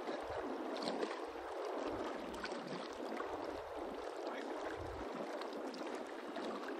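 Lake water lapping and washing against shoreline rocks as a steady splashing hiss, with low, uneven wind rumble on the microphone.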